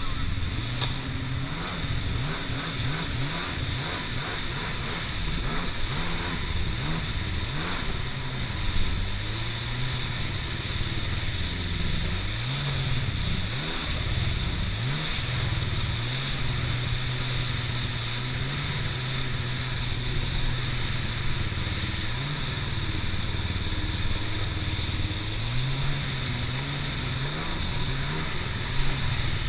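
Stand-up jet ski engine running at speed, its pitch rising and falling as the throttle is worked over the chop, with a steady hiss of spray and rushing water.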